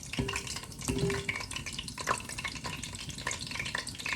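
Chicken gizzards frying in very hot oil in a pan, sizzling steadily with many small scattered pops.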